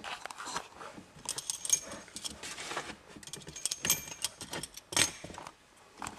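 Irregular clicks and light metallic jingling of things being handled in a car's front cabin, with the sharpest click about five seconds in.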